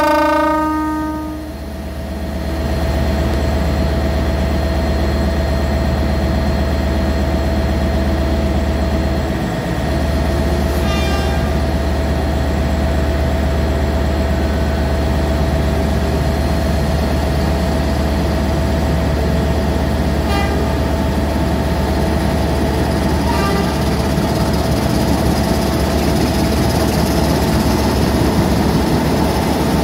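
Canadian-built M4 class diesel locomotive: the last of a long horn blast stops about a second in, then the diesel engine runs with a steady low rumble. Near the end the locomotive starts to pull away.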